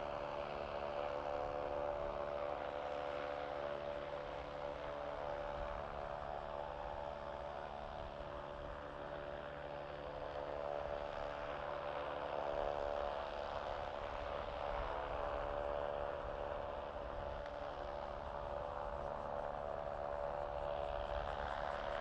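Steady mechanical hum of an airport apron around a parked Boeing 767, several steady tones held over a low rumble.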